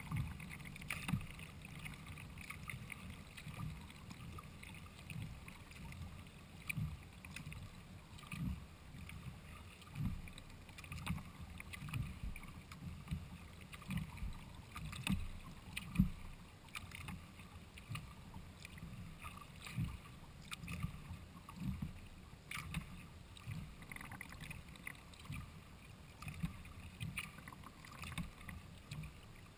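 Sea kayak being paddled on calm water: paddle blades dipping and pulling with light splashes and drips, and soft low thumps through the hull, about one stroke a second.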